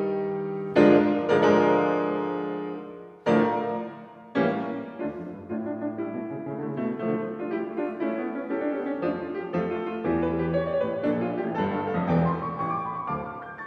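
Grand piano playing solo: loud chords struck and left to ring during the first few seconds, then a quicker, softer run of notes.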